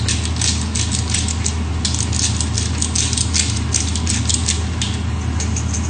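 Hand pepper mill being twisted over a wok, grinding peppercorns in rapid crunchy clicks, about four or five a second, that thin out near the end. A steady low hum runs underneath.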